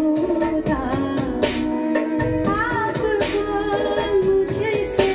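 Recorded music, a singing voice with a gliding, ornamented melody over percussion, played back through Altec 604-8G studio monitor loudspeakers driven by a single-ended triode tube integrated amplifier and heard in the room.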